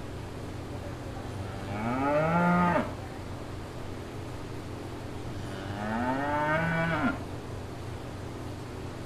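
Cow mooing twice, two long moos a few seconds apart, each rising in pitch and dropping off sharply at the end.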